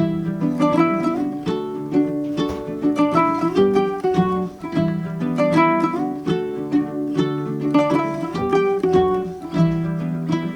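Background music: an upbeat plucked-string tune, ukulele or guitar, with notes picked in a quick steady rhythm over held low notes.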